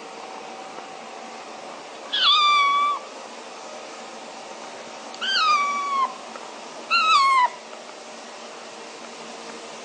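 Kitten meowing three times, each call about a second or less, starting high and dipping slightly in pitch, over a steady background hum.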